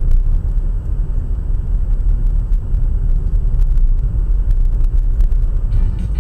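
Steady low rumble of a car driving, heard from inside the cabin: engine and tyre noise. Faint music comes in near the end.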